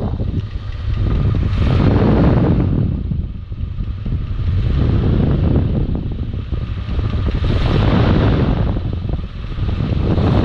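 Big-block Chevrolet V8 idling in a C10 pickup, heard from underneath, with a fan's air noise swelling and fading about every three seconds and largely covering the engine. The engine has a ticking in the bottom end, caused by a worn mechanical fuel pump and fuel pump rod.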